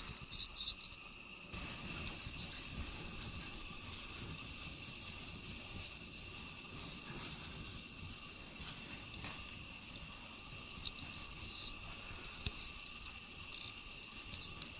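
Insects chirping steadily, with scattered clicks.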